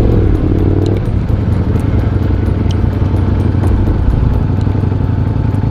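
Ducati Panigale V4 S's V4 engine idling through a newly fitted full exhaust system, a steady low rumble. A thin steady whine joins in about two-thirds of the way through.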